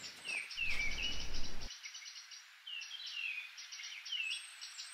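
Small garden birds chirping over and over, with short downward-sliding calls. A low background rumble stops abruptly about a second and a half in.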